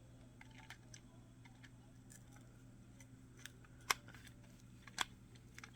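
Faint scattered clicks and ticks of a small screwdriver and tiny screws on a plastic camera housing, with two sharper clicks about four and five seconds in, over a steady low hum.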